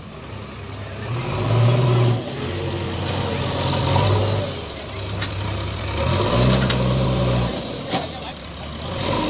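JCB 3DX backhoe loader's diesel engine working, revving up in several surges and dropping back between them.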